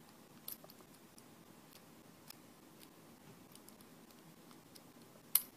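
Faint light metal clicks and ticks of a Peterson Silver Bullet bypass tool working in a Master Lock padlock's keyway, pressing up the pins at the back, with one sharper click near the end.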